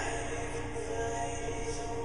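Recorded music playing, with several notes held steadily together.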